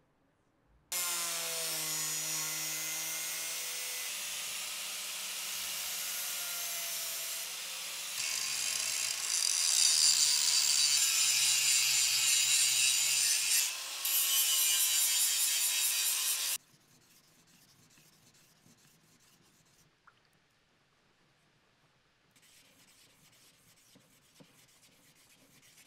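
Handheld angle grinder grinding a steel knife blade, its motor tone shifting in pitch as it bears on the metal, for about fifteen seconds before it cuts off suddenly. Near the end, faint rubbing of the blade on a whetstone.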